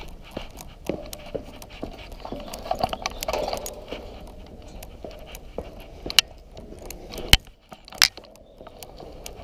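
Footsteps climbing a steel outdoor staircase: an irregular run of clanks and knocks on the metal treads, with a few sharper, louder bangs in the second half.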